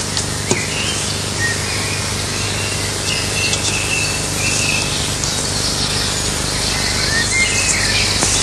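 Forest ambience: birds chirping in short calls over a steady high buzz of insects, with a faint low hum underneath.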